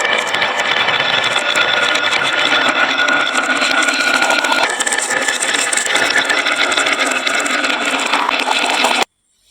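Many marbles rolling and clattering down a wooden marble run in a dense, steady rattle of clicks, which cuts off abruptly near the end.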